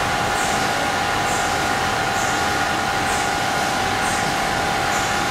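Steady running noise of mask-making machinery in a factory: a constant hum with a short high hiss repeating about once a second, like a production line cycling.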